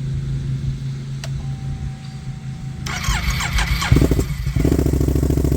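Can-Am Outlander 570 XMR's two-cylinder engine running at idle, then started again about four seconds in and settling into a loud, even, rapidly pulsing idle, firing on both cylinders after the idle bypass valve was replaced.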